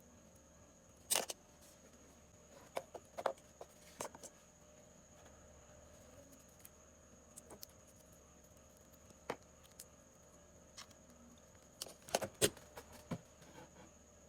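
Scattered light clicks and taps from handling a phone and small repair tools, bunched about a second in and again near the end, over a faint steady high-pitched tone.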